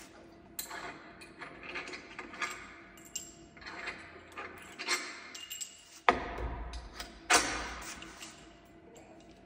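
Metal bolts and a hand tool clicking and scraping at a propeller hub as the hub bolts are worked loose and pulled out. There are two sharp metallic knocks about six and seven seconds in, the first with a dull thump under it.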